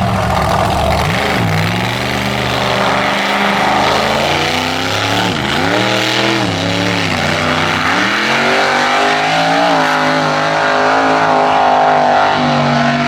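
Mega truck engine revving hard under load, its pitch dropping and climbing back about three times.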